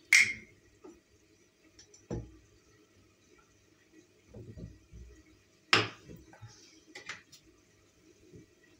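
Hands working a large sheet of dough on a tiled countertop: a few sharp taps and soft thumps as it is pressed, spread and folded, the loudest right at the start and just before six seconds in, quiet in between.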